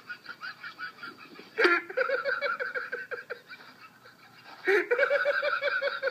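Someone laughing hysterically in a high, honking cackle: long runs of rapid pulsed laughs, with two loud fits breaking out about one and a half seconds in and again near five seconds.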